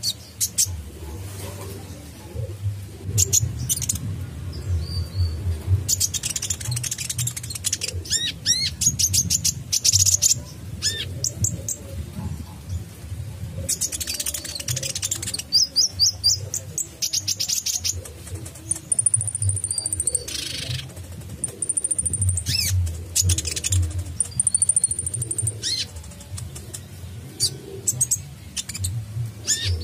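Male purple-throated sunbird ('kolibri ninja') singing in sharp, rapid bursts of high chirps and trills. Near the middle it gives three long, thin, very high whistled notes.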